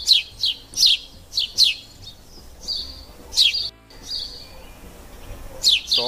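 Small bird chirping: short, high notes that each sweep downward, repeated in quick runs, with a lull of a couple of seconds in the second half.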